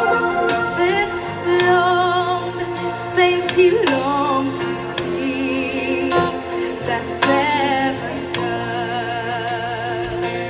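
Christian worship song: a singing voice holding long notes with vibrato over steady, sustained accompaniment chords.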